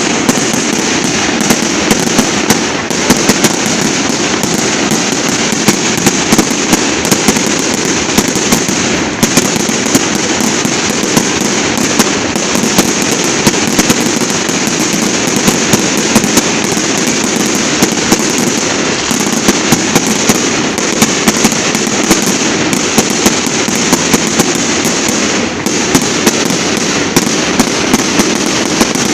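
Fireworks display: a continuous, dense barrage of sharp bangs and crackling over a steady rumble, with no let-up.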